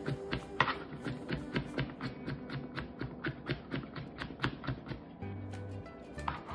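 Chef's knife rapidly mincing garlic on a plastic cutting board: quick, even taps of the blade hitting the board, about four to five a second, with a short let-up near the end. Background music plays underneath.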